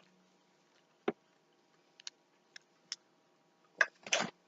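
A few faint, separate clicks and ticks in a quiet room, then a couple of louder short sounds near the end.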